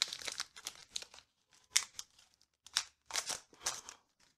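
Foil wrapper of a Pokémon card booster pack crinkling and tearing as it is opened by hand: a dense run of crackles for about a second, then a few separate rustles.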